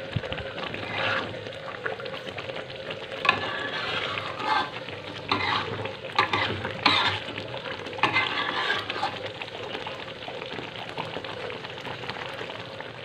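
A metal spatula stirring and scraping through a thick, bubbling coconut-milk jengkol curry in a metal wok, in irregular strokes over a steady simmering sizzle. The sauce is being cooked down to thicken and dry it. The strokes come often at first, then thin out over the last few seconds.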